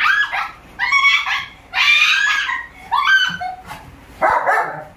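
A dog yelping and barking in a run of about five high-pitched calls, roughly one a second, each bending up and down in pitch.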